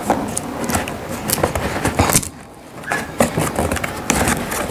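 Scissors cutting along the packing tape on a cardboard box: irregular crackling and scraping strokes, with a brief pause a little over two seconds in.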